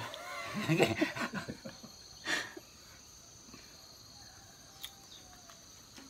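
A man laughing in bursts over the first two and a half seconds, over a steady high chirring of insects.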